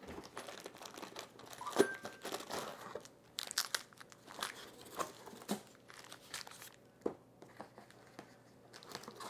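Soft, irregular rustling and crinkling of packaging, with light clicks and scrapes, as parts and a corrugated cardboard insert are handled and lifted out of a cardboard box.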